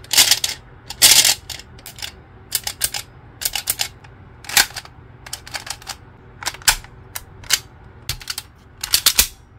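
Hard plastic clicks and clacks from a Kamen Rider Geats toy belt and its buckles being handled, turned and snapped into place. The clicks are sharp and come singly and in quick pairs at uneven intervals.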